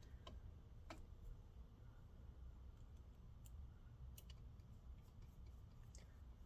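Faint, scattered clicks of a small precision screwdriver turning tiny screws into a laptop's chassis, about half a dozen spread irregularly over near silence.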